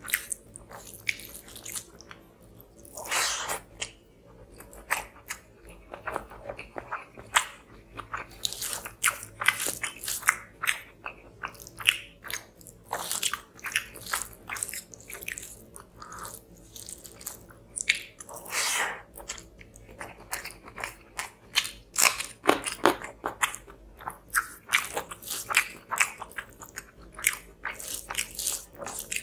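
Close-miked chewing of a mouthful of fish curry and rice, with a quick, irregular run of wet mouth clicks and smacks. A few longer, louder chews come about 3 seconds in, around the middle and near 22 seconds.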